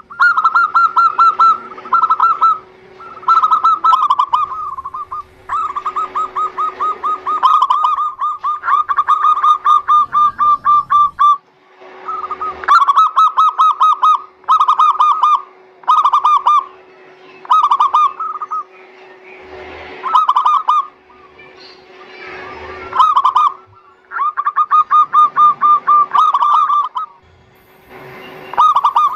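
Zebra dove (perkutut) song: repeated runs of fast, rattling cooing notes, each run lasting one to four seconds with short pauses between.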